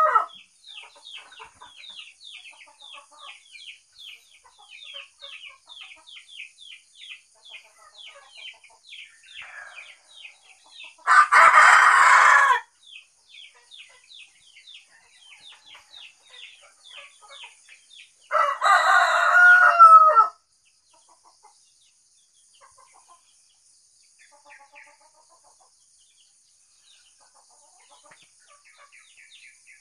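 Rooster crowing twice, long calls about 11 and 18 seconds in, the first harsher and noisier than the second. Between them runs a fast series of short, high, falling chirps, about four a second, which stops in the second half.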